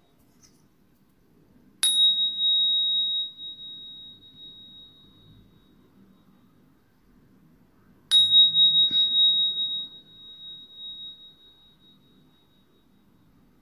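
A small bell struck twice, about six seconds apart. Each strike rings out as one clear, high, pure tone that fades over several seconds.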